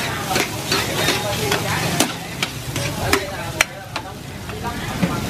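Metal ladle scraping and clinking against a large wok as shrimp fried rice is stirred and tossed, over the steady sizzle of frying. The clinks come irregularly, with one sharper knock a little past halfway.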